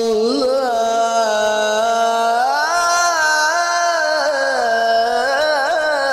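Solo male qari reciting the Quran (tilawah) in the ornamented, melismatic style, amplified through a handheld microphone. One unbroken sung phrase: a held note, then quick ornamental turns, climbing to a higher sustained note about halfway through and winding back down in rapid wavers.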